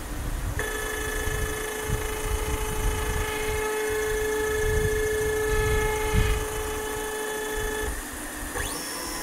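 CNC router's Z-axis stepper motor whining with a steady tone as it slowly lowers the bit toward the aluminium touch plate during an automatic tool-zero probe. The whine stops a little before the end, when the bit reaches the plate, and is followed by a short whine that rises and falls in pitch as the axis moves again quickly.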